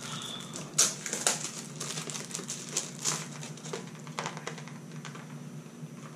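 Packaging crinkling and irregular small clicks and taps from a bracelet being handled in its packaging, with a few louder clicks about a second in and again about three seconds in.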